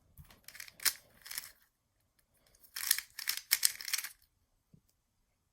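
Magnetic 3x3 speedcube being turned fast during a solve: its plastic layers clack in two runs of rapid clicking, each lasting about a second and a half, the second starting about three seconds in, with a single click near the end.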